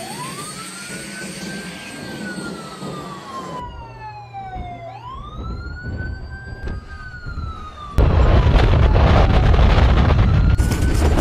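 Wailing alert siren, rising quickly and then falling slowly, about twice over. About 8 s in a loud steady roar cuts in, with the siren still faintly audible beneath it.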